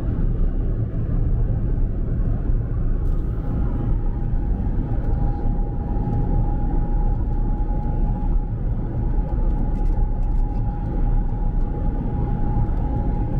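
Steady low rumble of road and engine noise inside a moving car, with a faint steady whine joining in about five seconds in.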